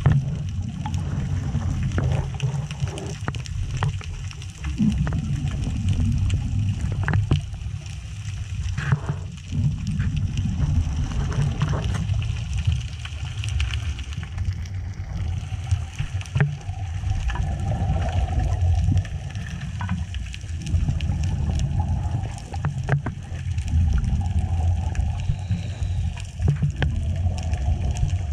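Underwater sound of a scuba dive picked up by a camera in its housing: a low rumble of water and divers' regulator bubbles that swells and fades every few seconds, with scattered sharp clicks.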